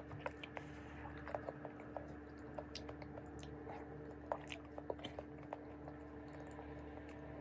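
A person chewing a mouthful of cooked mixed vegetables (bitter gourd, string beans, squash), with soft, scattered wet clicks of chewing and of fingers picking through the food on the plate. A faint steady hum runs underneath.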